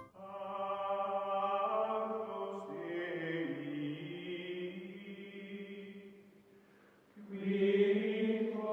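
Background music of long, held choral chords: one chord swells and fades away about six seconds in, then a louder chord comes in and cuts off abruptly at the end.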